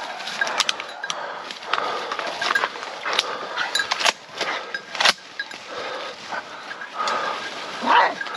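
Hunting dogs moving through dry leaf litter and undergrowth: rustling, many twig snaps and crackles, and scattered short animal cries, with a loud one near the end.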